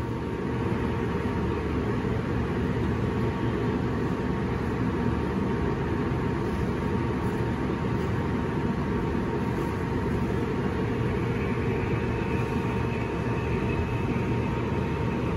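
Steady low roar of a gas range burner heating a pot of poaching water, with a faint steady hum above it.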